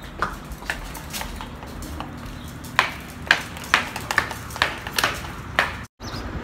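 Light, sharp clicks and small metallic clinks at an uneven pace of about two a second, from a dog being leashed and led out: its collar and leash hardware and its steps. The sound cuts out briefly near the end.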